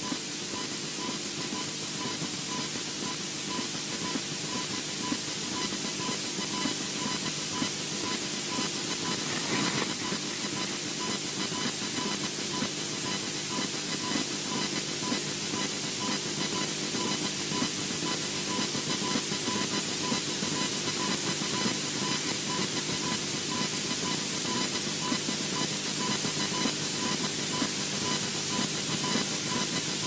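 Steady hiss from the nest camera's microphone, with a faint, regularly pulsing tone running under it. A brief burst of sound stands out about ten seconds in.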